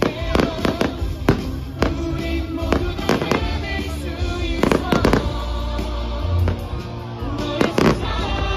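Aerial fireworks bursting in a string of sharp bangs, some in quick succession, over show music playing throughout.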